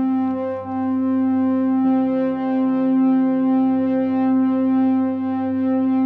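Music: loud sustained synthesizer chords held steady, with a change of chord about two seconds in.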